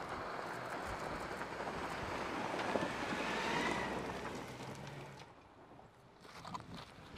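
2018 Ford Expedition's engine and tyres on a dusty dirt trail as it drives by. A rushing drive-by noise swells to a peak a few seconds in, with a rising engine note, then fades away about five seconds in.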